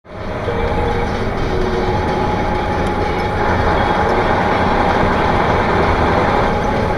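Steady engine and road noise heard from inside a moving vehicle through a dashcam microphone, with a faint steady hum over it.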